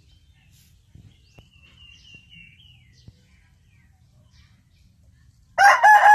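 Rooster crowing: a loud, steady-pitched crow begins near the end, after a few seconds of faint high chirping and a few light knocks.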